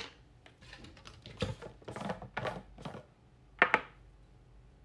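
Light clicks and taps as a plastic supplement bottle, a capsule and a water bottle with its cap are handled on a glass tabletop, with one sharper knock about three and a half seconds in.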